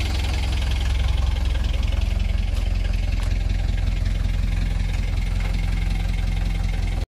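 Mercedes-Benz 240D's 2.4-litre four-cylinder diesel idling steadily after a cold start at about 0 °C, with a rapid, even diesel knock. The sound cuts off abruptly at the end.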